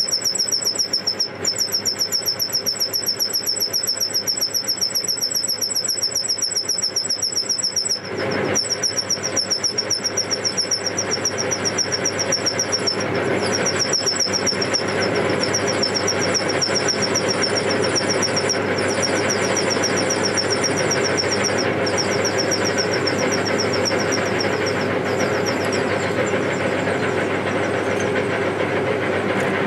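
Metal lathe parting off a turned bush, the parting tool squealing with a high, rapidly pulsing chatter over the steady run of the lathe. The squeal breaks off briefly about eight seconds in, then dies away a few seconds before the end, leaving the lathe running.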